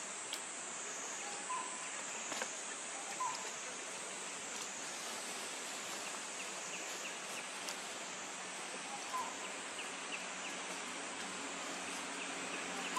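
Steady high-pitched insect drone in the forest, with a few short chirps now and then.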